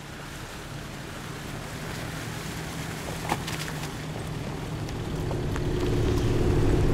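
A vehicle driving on an unpaved gravel road, heard from a camera mounted on its front: a low engine hum under rushing wind and road noise, growing gradually louder.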